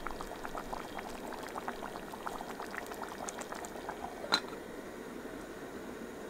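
Thick tomato stew bubbling and plopping in a metal camping pot. About four seconds in, the pot's metal lid is set on with a single sharp clink, and the bubbling stops.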